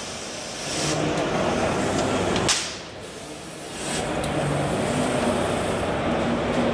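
Steady machinery noise on a workshop floor with a faint low hum. It drops away briefly after a sharp click about two and a half seconds in, then returns.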